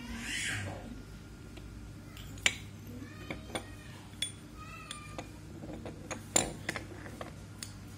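Scattered sharp clicks and knocks of a small metal XY slide table being handled and set on a tiled floor, the loudest about six and a half seconds in. A few short high-pitched calls sound in the background, one right at the start.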